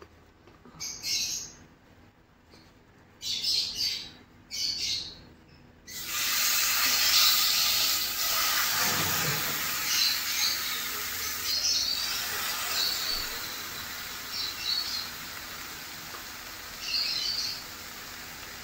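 Marinated chicken breast fillets laid into a hot frying pan, starting to sizzle suddenly and loudly about six seconds in, the sizzle slowly easing as a second piece goes in. Before that, small birds chirp a few times, and short chirps go on over the sizzle.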